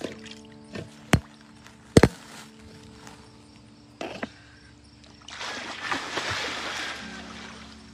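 A few sharp knocks close to the microphone, the loudest two about a second apart, then water splashing and sloshing for about two seconds as a swimmer pushes off from the pool edge into the water, starting about five seconds in. Faint music with steady held notes plays underneath.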